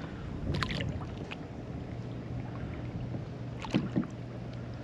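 Water sloshing and splashing around a kayak, with a few short knocks and splashes: about half a second in and twice just before the end. A steady low hum runs underneath.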